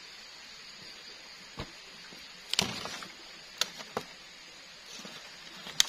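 Log campfire crackling, with a handful of sharp pops and knocks of wood, the loudest about halfway through and just before the end, over a steady high hiss.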